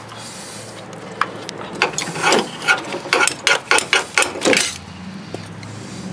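Quick sharp metallic clicks and knocks, about a dozen in a few seconds, as copper tubing and wiring are pulled and worked loose at a refrigerator's compressor.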